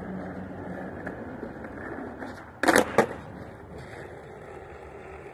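Skateboard wheels rolling on concrete. A little over halfway through comes a loud clatter and then a sharp clack as a flip trick over a strap (a hippie jump) is landed, and the board rolls on more quietly.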